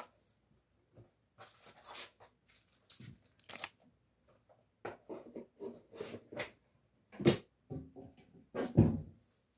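Someone rummaging and handling things: irregular short rustles and knocks with quiet gaps between them, the two loudest near the end.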